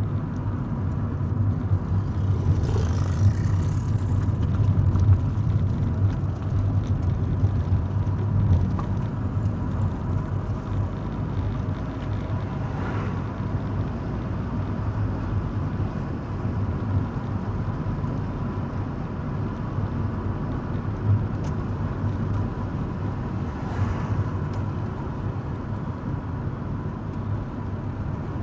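Car engine and road noise heard inside the cabin while driving slowly: a steady low rumble with a faint constant high tone, swelling briefly a few times.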